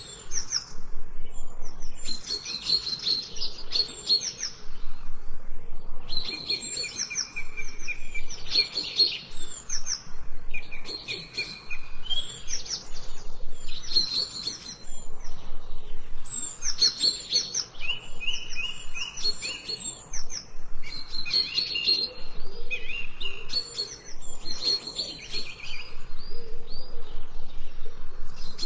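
Songbirds chirping and singing in quick repeated phrases, one after another with short pauses between them.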